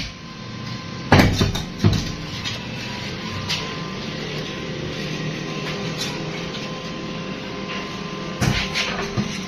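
A heavy metal electric water pump knocks against a concrete floor as it is handled. There are a few clunks about a second in, and a cluster of knocks near the end as it is lifted, over a steady background hum.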